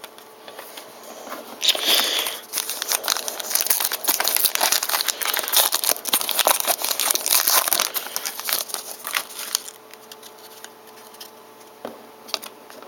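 Crinkling and tearing of a trading-card pack wrapper being opened by hand, with a sharp rip about two seconds in, then several seconds of dense crackling, dying down to a few light handling clicks.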